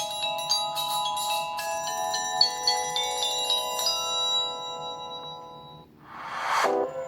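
Samsung Galaxy S4 stock ringtone: a quick run of bright, chiming bell-like notes that ring on and fade out over about six seconds. A short rising whoosh follows near the end and cuts off.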